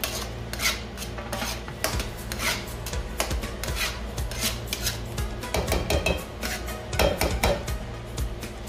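Slotted spatula scraping and stirring thick cream sauce in a nonstick frying pan: a rapid run of rasping scrapes against the pan bottom, one with each stroke.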